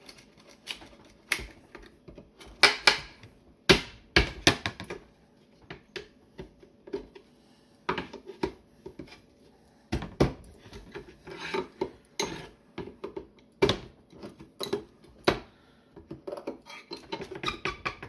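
Nail puller and hammer prying the nailed lid off a wooden ammunition crate: irregular metal-on-wood knocks and clinks with scraping in between, a few louder strikes standing out.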